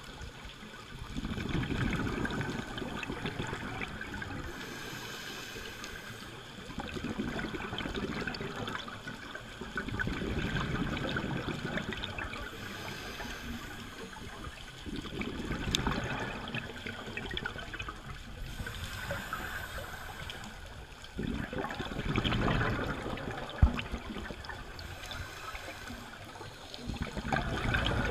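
A scuba diver's regulator breathing underwater: hissing inhalations alternating with gurgling rushes of exhaled bubbles, a full breath about every five to six seconds. One sharp click sounds late on.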